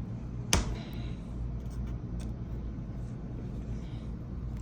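One sharp click as a tool works at a smart lock deadbolt's cover to pry it off, about half a second in, then a few faint light ticks over a steady low rumble.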